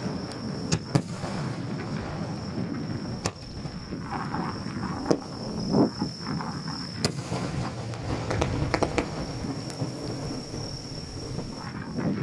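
Aerial firework shells bursting: scattered sharp bangs and cracks, several close together in the second half, with a deeper boom about six seconds in, over a low rumble.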